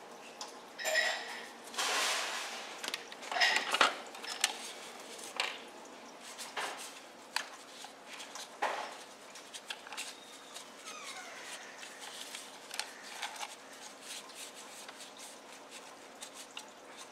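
Plastic toys being handled and wiped with a cloth: cloth rubbing on plastic, with light clicks and knocks of hard plastic parts. The rubbing is loudest in the first few seconds, with a couple of brief squeaks.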